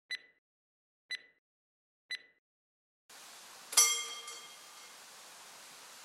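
Three short beeps a second apart, then a single loud strike of an old mechanical level-crossing warning bell (Läutwerk), ringing out with a bright metallic tone and fading over about a second.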